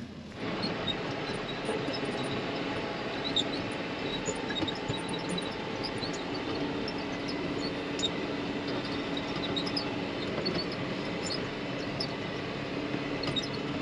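John Deere tractor running steadily, pulling a round baler that is working again after a stick jam was cleared.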